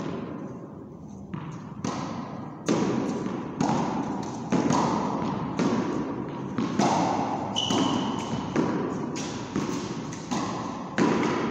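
Two tennis balls hit with a racket against a wall and bouncing on a concrete floor: a sharp pop about once a second, each one echoing round a large, bare hall.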